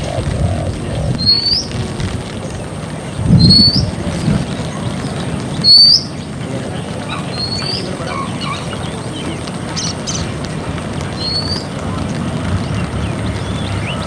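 A bird repeating a short, rising whistled call every second or two over steady outdoor background noise. Two loud, low bursts of noise stand out, one about three and a half seconds in and a shorter one near six seconds.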